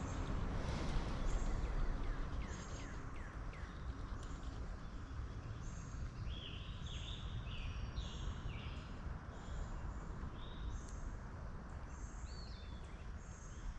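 Songbirds chirping: short, high notes repeating throughout, with a run of arched chirps about two a second in the second half, over a steady low background rush.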